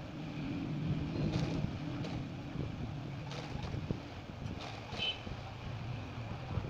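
Industrial lockstitch sewing machine running steadily as it stitches a folded fabric strip, a little louder in the first couple of seconds.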